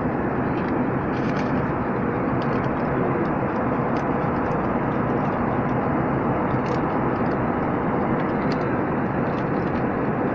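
Steady engine and airflow noise inside the cabin of an Airbus airliner in flight, heard from a window seat, with a few faint ticks over it.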